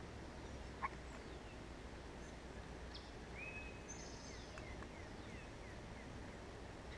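Wild birds calling: a short whistle and a string of quick falling chirps through the middle, over a steady low outdoor rumble. A single sharp click sounds about a second in.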